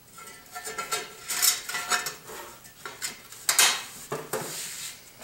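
Thin stainless steel wire mesh being pressed and fitted into the sheet-metal coolant drain tray of a Tormach PCNC 1100 mill: irregular metal clattering and rattling, with sharper knocks about one and a half and three and a half seconds in.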